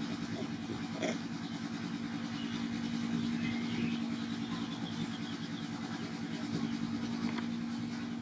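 A small engine running steadily, a low even hum, with a few faint high chirps about three and a half seconds in.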